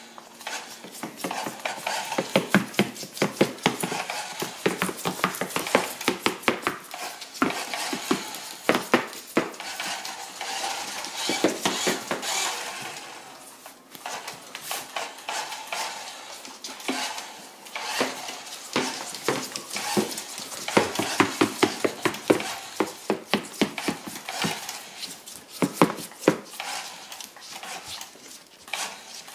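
A tortoise's shell and claws knocking against a plastic toy pickup truck and clicking on a hardwood floor: a long run of irregular clicks and clattery knocks, with a brief lull about halfway through.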